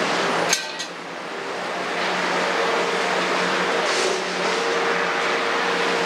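Kobelco 350 excavator's diesel engine running steadily at a construction site, with two sharp clicks close together about half a second in.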